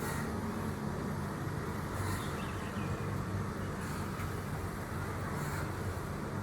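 Steady wind rumbling and buffeting against the microphone.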